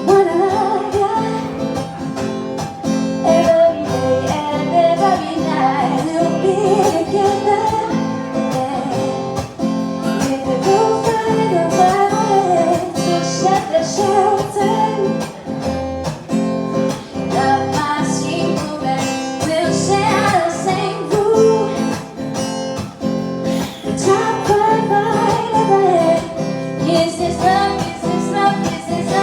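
Live acoustic guitar strummed steadily, with a singer's voice carrying the melody over it.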